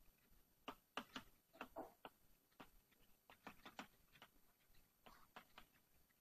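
Chalk writing on a blackboard: faint, short, irregular taps and scrapes of the chalk, a few a second.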